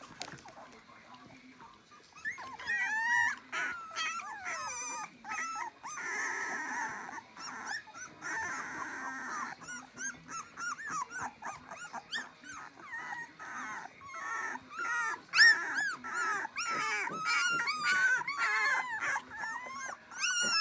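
Two-and-a-half-week-old puppies whimpering and squeaking: many short, high cries that rise and fall, often overlapping. They are sparse for the first couple of seconds and grow busier and louder in the second half.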